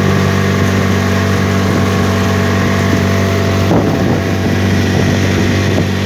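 Small boat's outboard motor running steadily at speed, with water rushing past the hull and wind on the microphone.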